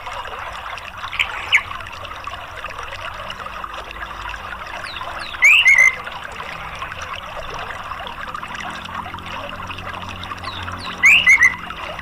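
Steady rush of running water, with a bird's short call of quick gliding chirps heard twice, about five and a half seconds apart, and a fainter pair of notes about a second in.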